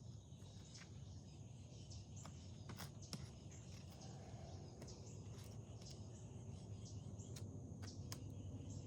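Faint outdoor background: a steady low hum and a thin high hiss like insects, with scattered small clicks from handling.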